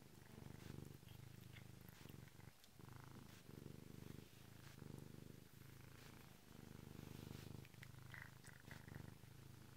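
Domestic cat purring quietly, close up, in cycles that swell and pause about once a second while it chews on a finger, with faint clicks over the top.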